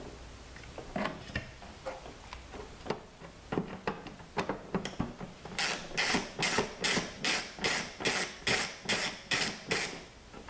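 Screwdriver backing a screw out of a plastic car tail light housing: a steady run of sharp clicking strokes, about three a second, through the second half. Before that come scattered knocks from handling the hard plastic housing.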